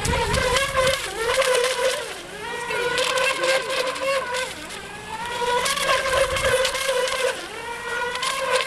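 The motor of an ECO Expert 2008 RC speedboat whines at high pitch as the boat runs across the water. Its pitch and loudness rise and fall with the throttle and turns. Wind buffets the microphone near the start and again about six seconds in.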